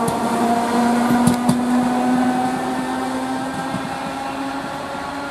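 ET4A electric multiple unit pulling away, with a steady whine from its drive that rises slightly in pitch and a few clacks from the wheels about a second and a half in. The sound fades gradually as the train moves off.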